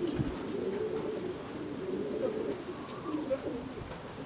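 Racing pigeons cooing in their loft: several low, warbling coos overlapping one another without a break.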